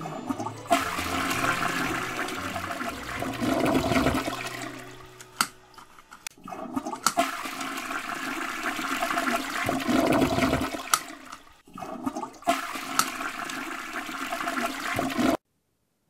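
Toilet flushing three times in a row, each a rush of water that dies away. The last flush cuts off abruptly near the end.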